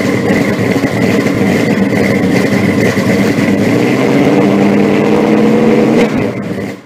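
Loud intro soundtrack, a steady sustained drone that fades out quickly near the end.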